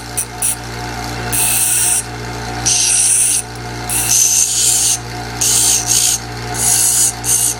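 Bench grinder running with a steady motor hum while metal is pressed against its grinding wheel. There are about five or six harsh grinding rasps, each lasting roughly a second.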